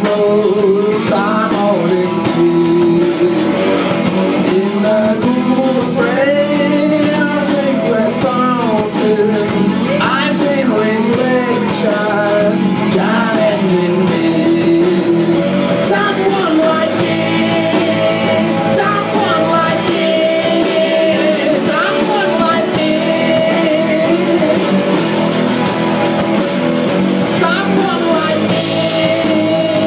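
Live rock band playing a song: electric guitars, bass guitar and a drum kit keeping an even beat on the cymbals.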